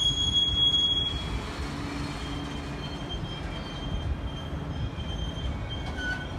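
Freight train's autorack cars rolling past: a continuous low rumble of steel wheels on rail, with a steady thin high-pitched wheel squeal running over it. The squeal is loudest in the first second.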